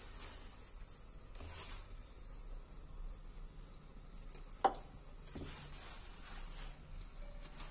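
Hands working wet flour and mashed bathua greens into dough in a steel bowl: faint squishing and rustling, with one sharp knock about four and a half seconds in.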